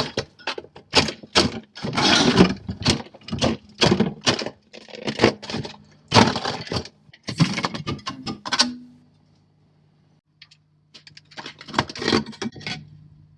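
Ice cracking, scraping and clattering as built-up ice is chipped and broken out of the bottom of a refrigerator, in irregular bursts. It stops for about two seconds, then resumes near the end.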